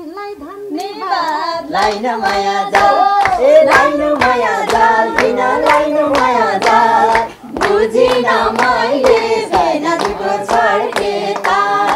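Nepali dohori folk singing, with a steady beat of about three claps a second under the voices and a brief break between phrases about halfway through.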